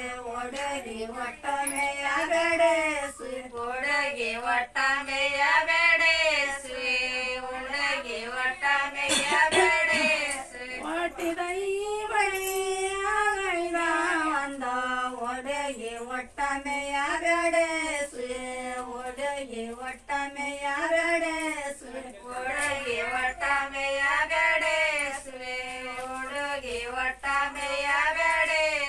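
Women's voices singing a Kannada folk song without instruments, in long, gliding sung lines.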